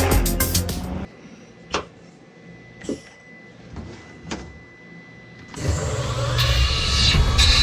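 An Omniturn CNC lathe's sliding guard door is handled and slid shut by hand: four short sliding knocks over a few seconds. Music is heard about a second before this, stopping abruptly, and comes back loud near the end.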